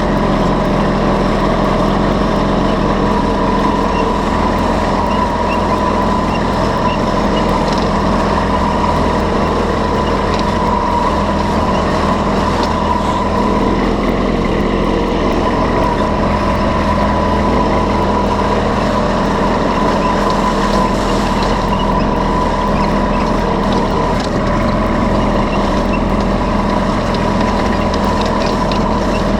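A large engine running steadily at a constant speed, with an even hum that does not change.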